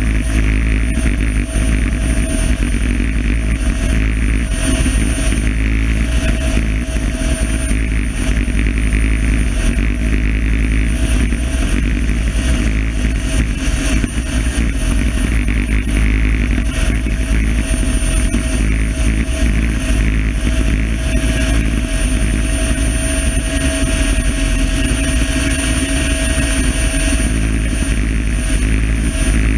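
Helicopter running steadily: a continuous loud low rumble with a steady high-pitched turbine whine.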